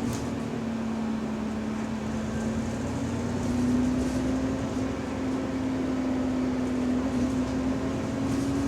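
A bus's rear differential whining with one steady tone that rises slowly in pitch as the bus gathers speed, over the drone of the engine and road noise inside the cabin; the subtle whine is the weird differential noise the video is about.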